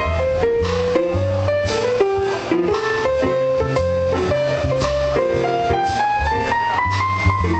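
Instrumental music playing: a melody stepping up and down over a repeating bass line with a steady beat.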